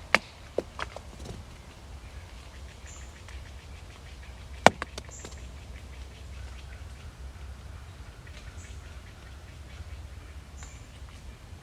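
Several sharp clicks or knocks, one much louder than the rest about four and a half seconds in, with a few very short high chirps now and then over a steady low rumble.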